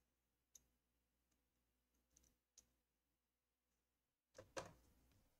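Small clicks and knocks of laptop parts being handled during reassembly: a few faint, isolated clicks, then a short cluster of louder ones about four and a half seconds in.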